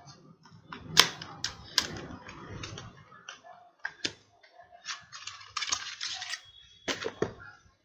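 Small cardboard processor box and its clear plastic CPU clamshell handled and opened by hand: irregular sharp clicks and taps, the loudest about a second in, with a stretch of plastic rustling a little past the middle.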